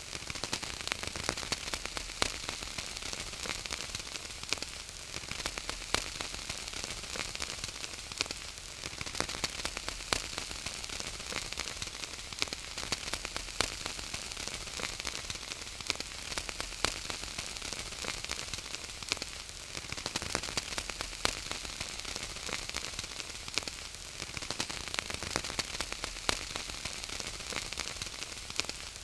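Wood fire crackling: a steady hiss with frequent sharp pops and snaps.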